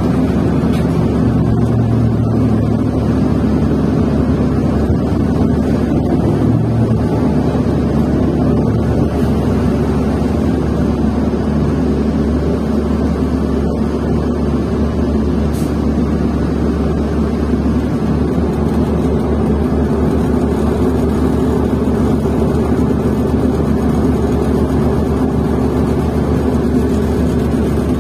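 A New Flyer XN40 transit bus's Cummins Westport ISL-G natural-gas engine running with a steady, continuous low drone. About two-thirds of the way through, the deepest part of the drone thins a little.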